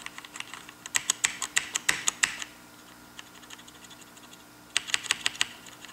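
KBC Poker mechanical keyboard with Cherry MX Red linear switches being typed on. Sharp key clacks come in a quick run about a second in and another near the end, with a quieter stretch of faint taps between them.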